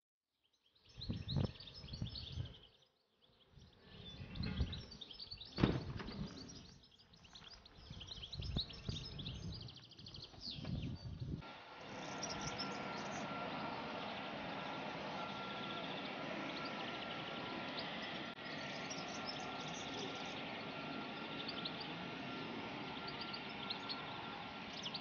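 Outdoor ambience: birds chirping, with uneven low rumbling gusts in the first half. About halfway through, a steady even hiss takes over for the rest.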